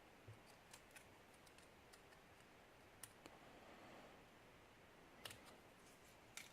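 Near silence broken by a few faint, sharp metallic clicks and ticks, irregularly spaced, as small tools work at the retaining clip on the back of a picked lock's core.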